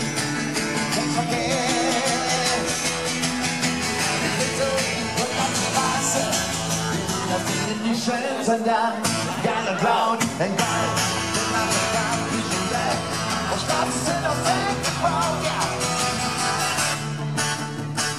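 Twelve-string acoustic guitar strummed in a live rock song. The low notes drop out briefly about halfway through, then come back.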